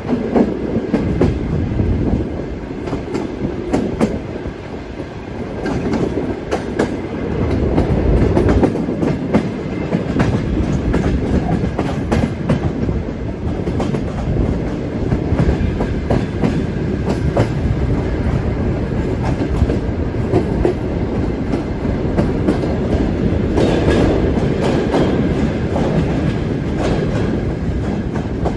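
Soviet-built sleeper train running along the line: a steady rumble with the wheels clicking irregularly over rail joints.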